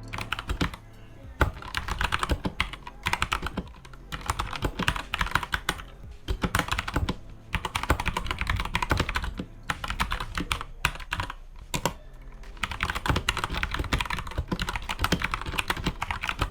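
Typing on a Keychron K2V2 mechanical keyboard fitted with brown switches: fast runs of key clicks and clacks in bursts, broken by short pauses.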